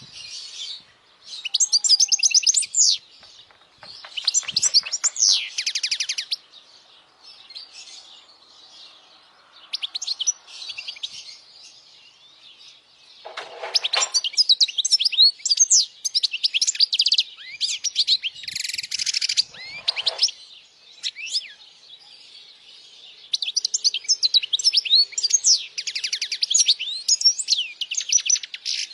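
European goldfinch singing: phrases of quick, high twittering trills and chirps lasting from one to several seconds, with short pauses between them. Two harsh, scratchy notes come near the middle.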